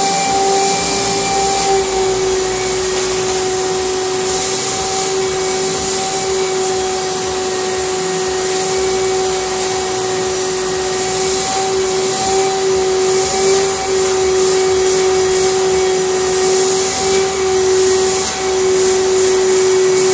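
Vacuum cleaner running steadily: a constant motor whine with a rush of air through the nozzle that swells and fades every second or two.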